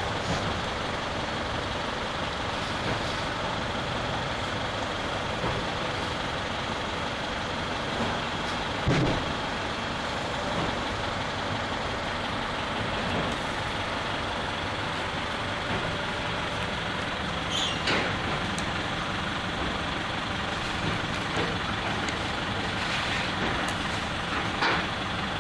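Steady background noise, with a few scattered clicks and knocks as cable ties are worked through the slots of a 3D printer's white plastic frame panels and the frame is tilted.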